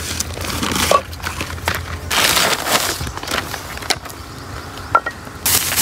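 Crinkly rustling of a plastic sack being handled and pulled open, loudest about two seconds in and again near the end, with a few light knocks as items are set down. A steady low hum runs underneath.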